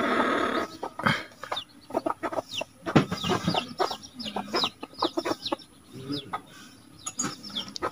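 Hands squeezing and rubbing shelled snail meat in a steel bowl to wash it: a run of short wet squelches and clicks against the metal, after a brief splash of rinse water being poured off at the start. Chickens cluck in the background.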